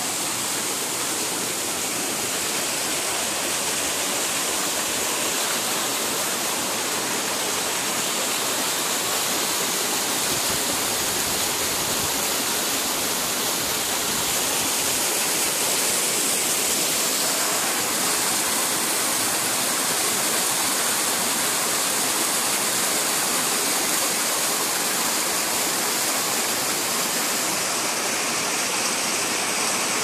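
Steady rushing of a small waterfall and its stream, an even hiss of falling water that grows slightly louder over the first half.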